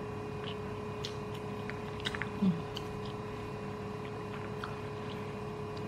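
Quiet eating sounds: a metal spoon clicking and scraping in a plastic takeaway container of rice, with soft chewing, over a steady electrical hum. A cluster of sharper clicks comes about two seconds in, followed by a brief low sound, the loudest moment.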